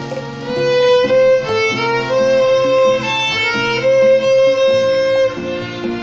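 Solo violin played with the bow: a melody of long held notes that swells louder about half a second in, over lower sustained notes underneath.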